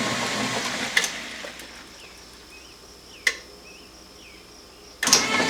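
Washing machine running, cut off by a click about a second in. A few quiet seconds follow with faint chirps and one sharp click. Near the end the 1993 Kenmore 80 Series washer's drain pump starts abruptly and loudly with an odd sound, which the owner takes for something briefly caught on the pump impeller.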